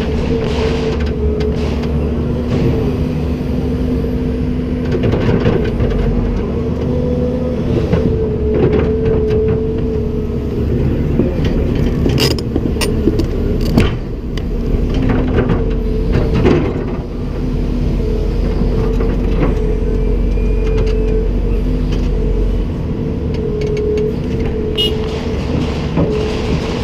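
Komatsu PC290-10 excavator working: the diesel engine and hydraulics run steadily with a constant whine, and a few sharp metallic knocks or clanks come around the middle.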